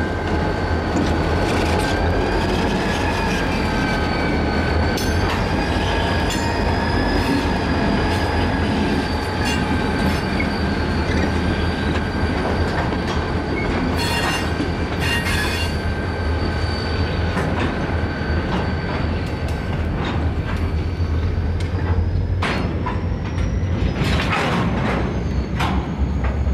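A freight train rolls slowly past: a diesel locomotive's low rumble, then covered hopper cars with wheels squealing steadily on curved track. The squeal wavers in pitch and climbs higher near the end. Scattered clanks of wheels over rail joints come about halfway through and again toward the end.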